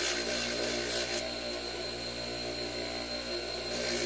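A bench power tool's motor running steadily while the steel revolver hammer is held against its abrasive to put the original brush mark back in. The rubbing hiss of metal on the abrasive stops about a second in and comes back briefly near the end, the motor hum carrying on underneath.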